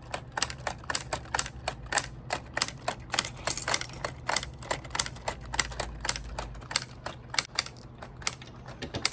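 Keys of a LEGO Ideas typewriter built from plastic bricks being typed in a quick, irregular run, about four or five plastic clacks a second, ending with a double clack.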